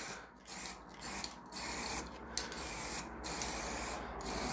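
Spray gun hissing in short bursts with brief breaks between them, applying lacquer to wood, over a steady low hum.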